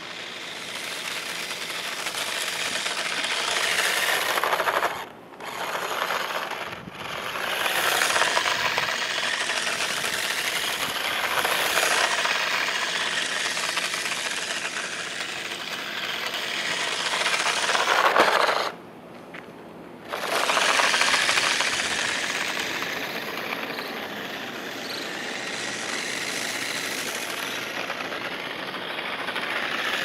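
A toy remote-control Corvette Z06 (New Bright) driving on asphalt: its small electric motor and gears run hard, rising and falling in pitch as it speeds up and slows down. The sound cuts out briefly about five seconds in, again near seven seconds, and for over a second just before twenty seconds, when the throttle is let off.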